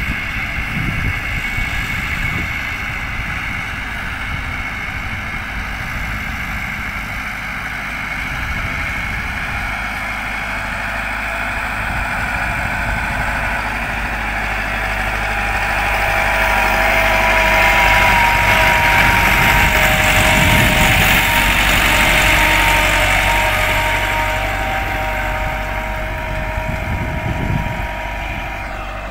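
Farm tractor engine running steadily while pulling a field implement. It grows louder as the tractor passes close about halfway through, then fades as it moves away.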